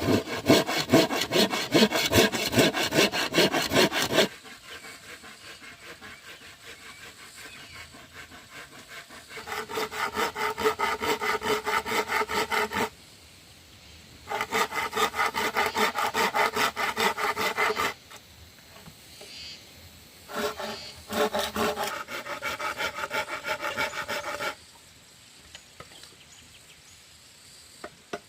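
A hand saw cutting wood in bouts of quick, rhythmic back-and-forth strokes, stopping and restarting four times.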